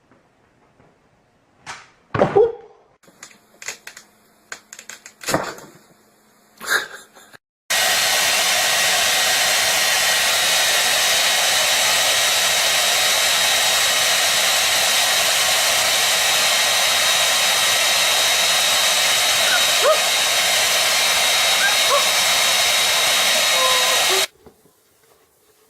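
A few short knocks and squeaks, then a steady whirring blower noise with a faint high whine. It starts abruptly about eight seconds in, runs for about sixteen seconds and cuts off suddenly.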